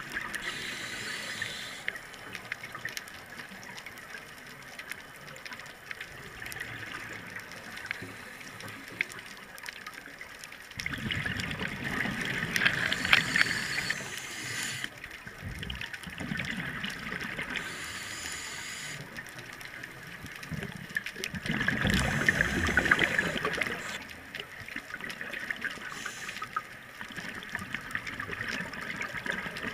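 Scuba regulator breathing underwater: two long bursts of exhaled bubbles, about eleven and twenty-two seconds in, over a steady watery hiss.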